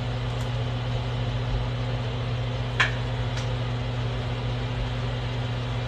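A steady mechanical hum with a low, even drone, like a kitchen fan running, and one light click about halfway through.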